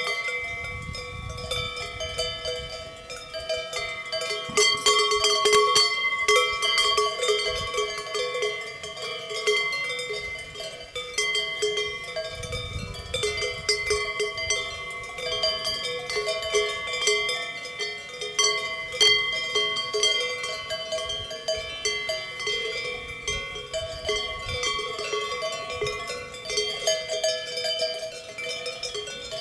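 Herd of grazing cows with many cowbells clanking and ringing irregularly and overlapping as the animals move their heads.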